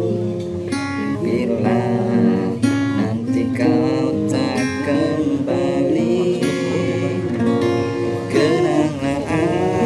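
Acoustic guitar strummed in steady chords while a man sings along over it.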